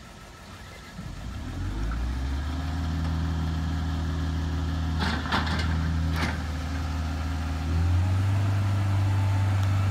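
A heavy engine starts about a second in and settles into a steady low idle, then is throttled up to a higher steady speed near the end. A few short, sharp noises sound about halfway through.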